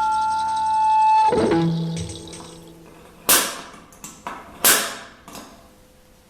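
Background electronic music: a held synth tone that breaks off about a second in, lower notes fading away, then a few sharp hits, two of them loud, as the track dies down.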